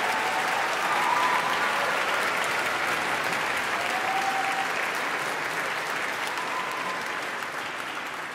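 Audience applauding, dense and sustained, slowly dying down toward the end.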